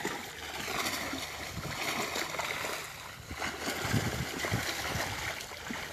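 Muddy water splashing and sloshing as a large fishing net is hauled through a shallow drained pond, with a few heavier splashes about four seconds in.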